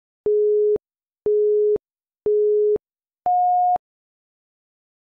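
Electronic countdown-timer beeps: three half-second beeps a second apart at one pitch, then a fourth, higher beep that signals the end of the count.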